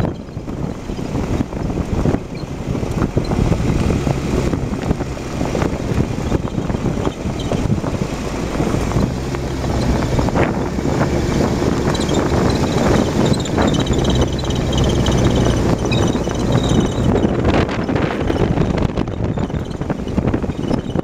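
Car being driven, with steady road and wind noise, many small knocks and rattles, and short high-pitched squeaks in the middle stretch: the squeak whose source is being sought.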